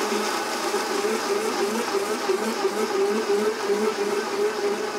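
Commercial smoothie-bar blender running at speed, blending a protein shake with ice: a steady motor whir whose pitch wavers as the contents churn in the jar.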